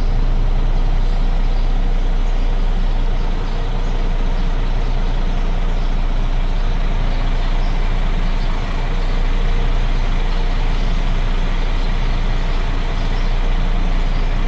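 Renault truck's diesel engine idling steadily just after start-up, running as the gearbox software calibrates the clutch engagement position.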